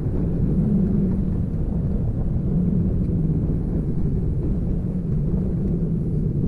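Steady low rumble from an erupting volcanic vent with lava fountaining, mixed with wind buffeting the microphone.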